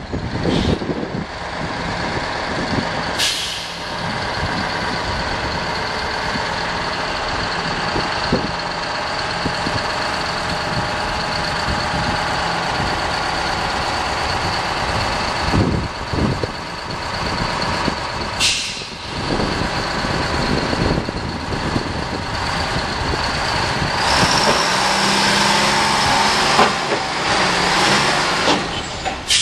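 FTF heavy-haul tractor's diesel engine running as the truck drives up the ramps onto a lowboy trailer, with a steady high whine over it. An air brake hisses at about 3 seconds and again at about 18 seconds, and the engine gets louder near the end as it climbs onto the trailer.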